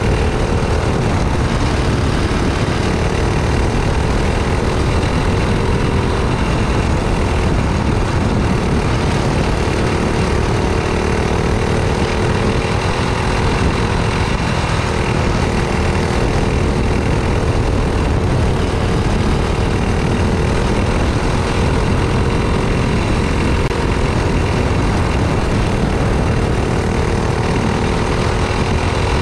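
Racing go-kart engine running at speed, heard from on board with heavy wind and road noise; its pitch rises and falls a little as the kart takes the track.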